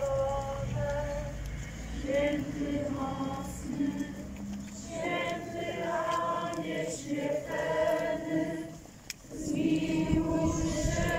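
A procession crowd singing a slow religious hymn together, with long held notes. The singing breaks off briefly about nine seconds in and starts again louder.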